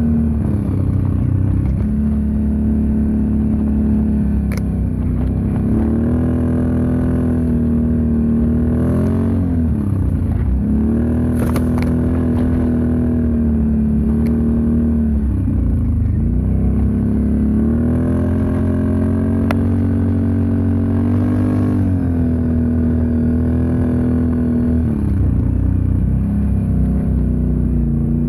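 Can-Am Outlander 650 XMR's V-twin engine running through an aftermarket MBRP muffler while riding a trail, its pitch rising and falling with the throttle and easing off about five times. A few sharp clicks come through over the engine.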